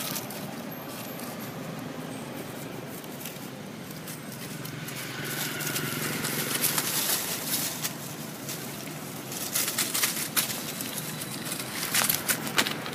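Steady outdoor background hiss with scattered light crackles of dry leaves, bunched about ten and twelve seconds in.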